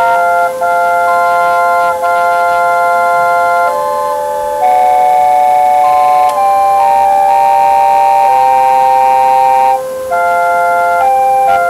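Homemade pipe organ playing held chords of several pipes at once, the chords changing every second or two; the organ has not yet been tuned.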